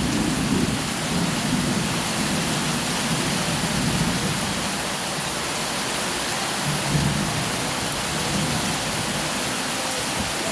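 Heavy rain pouring steadily, with strong wind gusting in low rumbles near the start and again about seven seconds in.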